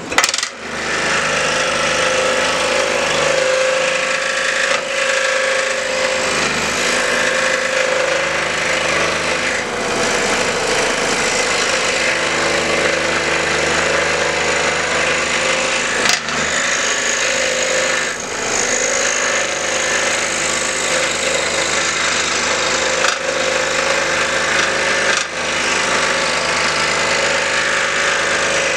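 Scroll saw switching on and running steadily, its blade cutting through a small elm block.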